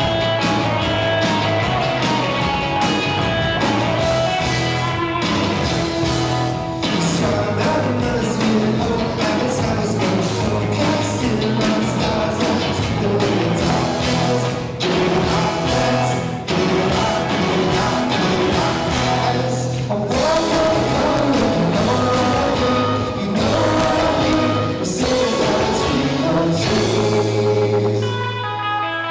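A rock band playing live, with a singer and drum hits throughout.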